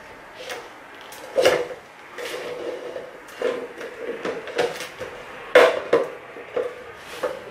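Empty tin cans knocking and clinking against each other as a strap is pulled around a stack of them. The knocks are irregular and metallic, each with a short ring, and the loudest come about a second and a half in and again just past the middle.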